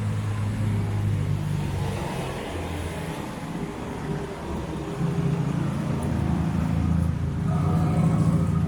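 Road traffic: a motor vehicle's engine running close by with a steady low hum, dipping briefly and then growing louder from about five seconds in.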